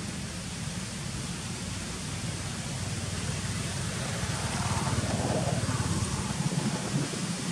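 Outdoor background noise: a steady hiss over an irregular low rumble, growing somewhat louder in the second half, with a brief mid-pitched patch about five seconds in.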